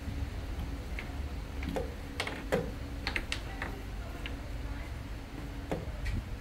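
A series of irregular sharp clicks and taps from chess pieces being set down on the boards and chess-clock buttons being pressed during rapid play, over a steady low hum.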